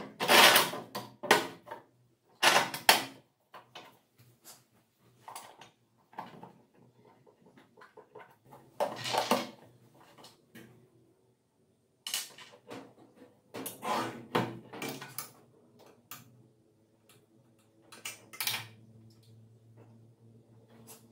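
Irregular clanks, clicks and scrapes of metal and plastic parts of a sliding angle grinder stand being handled and adjusted by hand during assembly, in scattered bursts, loudest at the very start.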